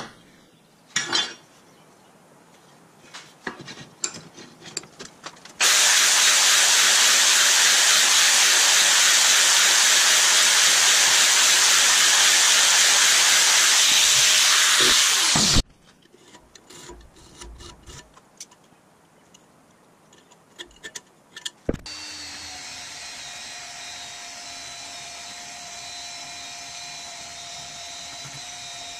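Steel flat bar clanking as it is clamped into a bench vise, then an angle grinder with a cut-off wheel cutting through the steel for about ten seconds and spinning down. About twenty-two seconds in, a belt grinder starts and runs steadily.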